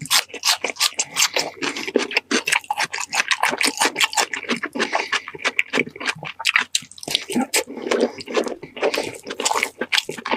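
Close-up wet chewing and mouth sounds of someone eating: rapid, irregular smacks and squelches that never stop.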